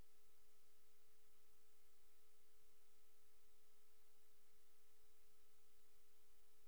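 Faint, steady electronic tone at a single pitch with fainter overtones above it, unchanging, over a light hiss: noise picked up in the webcam recording rather than any sound of the nail painting.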